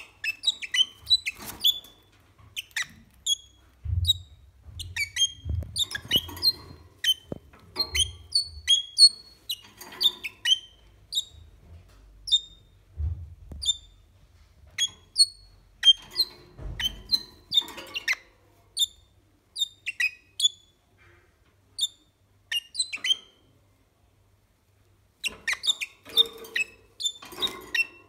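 Male red-rumped parrot chirping: quick, sharp, high-pitched chirps and short whistled notes, several a second in irregular runs, with a lull near the end. A few dull low thumps fall among the calls.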